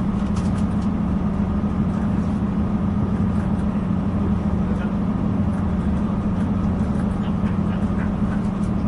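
Steady drone and running noise inside a Northern Ireland Railways diesel multiple-unit passenger train, a constant low hum with rumble beneath it.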